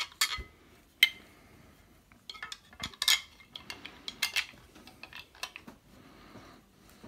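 Clicks, knocks and clatter of a rechargeable LED work light's hard plastic stand and metal bracket being handled and fitted together, with one sharp knock about a second in and bursts of rattling around three and four seconds in.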